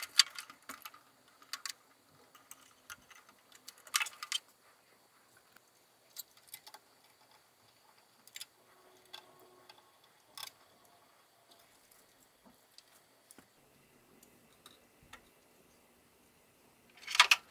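Small clicks and taps of wiring work: a screwdriver on terminal screws and wires being handled. Louder rustles of wire and cable come about four seconds in and again near the end.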